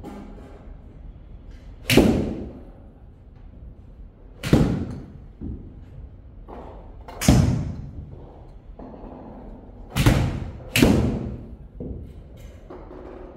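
Ray Cook RX-2 putter striking golf balls: five sharp knocks a few seconds apart, the last two less than a second apart, each trailing off in the echo of a large room.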